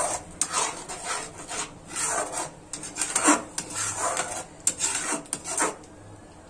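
A spoon scraping around a stainless steel kadai while stirring and frying a thick tomato masala paste, in short rasping strokes about two a second. The strokes stop near the end.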